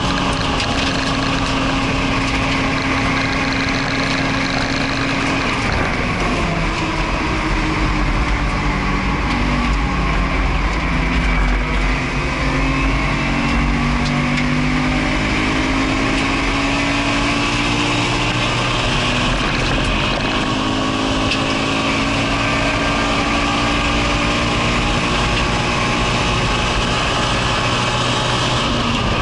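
Naturally aspirated Subaru BRZ's stock 2.0-litre flat-four engine driven hard on track, heard from inside the cabin. The engine note climbs through the revs and drops back repeatedly as the car accelerates, shifts and brakes, over a steady hiss of wind and road noise.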